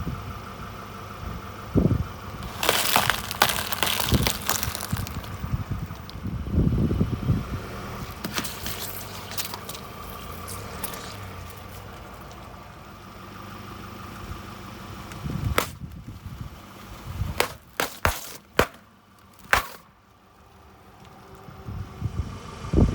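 A car rolling slowly over objects and crushing them, with bursts of cracking and crunching. A car engine runs steadily underneath.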